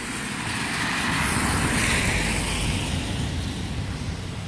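A car driving past on a wet road: a tyre hiss that swells to a peak about two seconds in, then fades.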